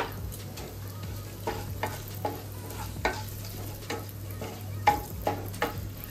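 Whole dried red chillies, bay leaves and cumin seeds sizzling in hot oil in a non-stick kadai: the tempering (phoron) frying until its aroma comes out. A spatula stirs them, scraping and tapping against the pan in irregular strokes, the sharpest at the very start.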